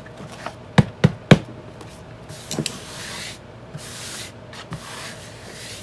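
Three quick, sharp knocks about a second in, then scraping and rustling of paper in several short stretches as an old book is pulled apart by hand.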